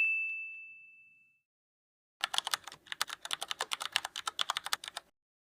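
A bright bell-like ding fading away, then after a pause about three seconds of rapid clicking like fast typing on a computer keyboard, likely an outro sound effect.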